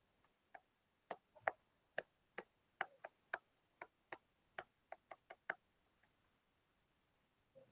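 A series of light, sharp clicks, about fifteen in irregular succession over four or five seconds, then stopping.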